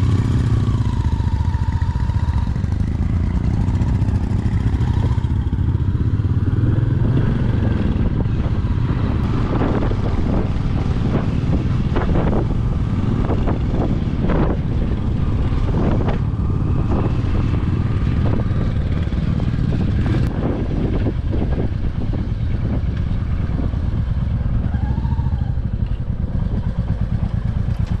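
Motorcycle engine running steadily under way, a continuous low drone with a few short rattly knocks mixed in.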